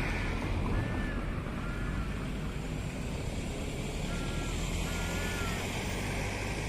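Amphibious excavator's diesel engine running steadily, with a series of short, high chirps sounding over it.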